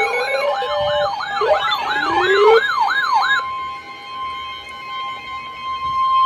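Electronic siren sounds, a fast yelp sweeping up and down about three times a second layered with other wavering tones, stopping about three seconds in. They give way to a steady single-pitch weather radio alert tone.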